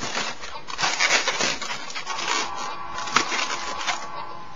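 Twisted latex balloons rubbing and squeaking against each other and the hand as a finished balloon motorcycle is handled: scratchy, crackling rubber noise, with a thin held squeak through the second half.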